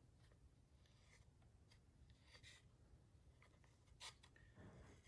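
Near silence, with faint scratching of a small metal tool cutting and trimming the rim of a soft, wet clay bowl. There is a small click about four seconds in.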